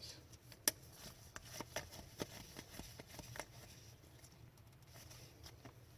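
Hockey trading cards being handled and flipped through a pack, making faint soft clicks and rustles, with one sharper click under a second in.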